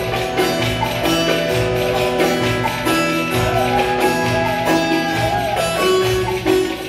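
Instrumental Ankara oyun havası, a Turkish folk dance tune, played loud: a bending melodic line over a steady, even beat.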